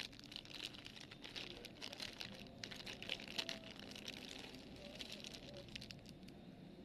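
Faint, irregular clicking and rustling on a laptop keyboard, many small key clicks over a light hiss.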